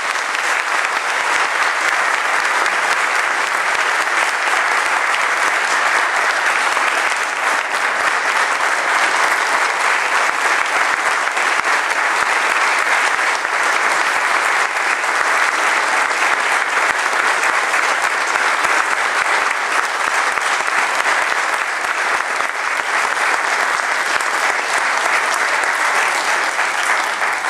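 A church congregation applauding steadily, a long sustained round of clapping welcoming a newly installed pastor.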